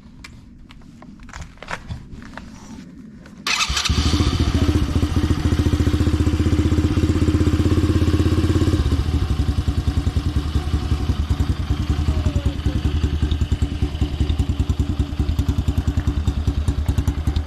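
A few light clicks, then a small 125cc single-cylinder four-stroke ATV engine starts suddenly about three and a half seconds in. It runs at a fast idle, then drops to a lower, more uneven idle about halfway through. It is being run for a minute to circulate fresh oil after an oil change.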